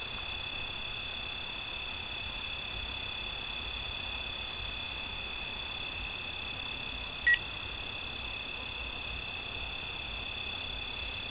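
A steady, high-pitched night chorus of calling insects and frogs, with one short chirp about seven seconds in.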